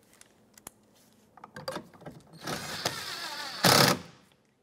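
Cordless power driver running an 8mm bolt into a door-panel bracket with a whirring motor, then a short, louder burst near the end as the bolt seats tight.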